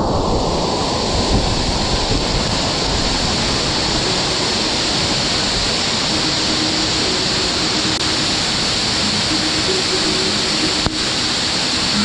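Waterfall pouring onto rocks and into a pool, close by: a steady, loud rush of falling water.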